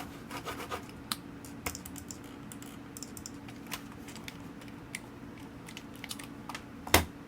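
Computer keyboard keys pressed a few at a time, as scattered clicks with one louder knock near the end, over a steady low hum.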